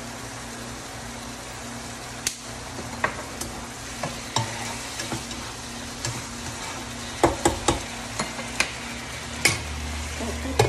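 Food sizzling steadily in a nonstick wok over a steady low hum. From about two seconds in, a utensil knocks and scrapes against the pan, more often near the end.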